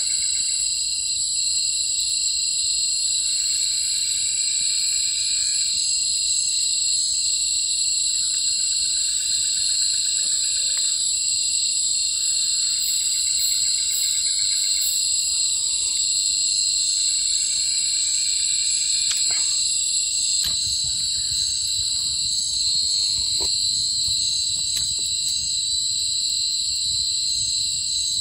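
Night forest ambience: a steady, high-pitched insect chorus, with an animal's trilling call repeated about every four to five seconds, the call stopping about two-thirds of the way through. After that come low rustling and a few sharp knocks.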